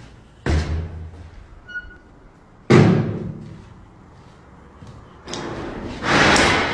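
Two door bangs about two seconds apart, the second the louder, each dying away quickly. Near the end comes a rushing noise that swells.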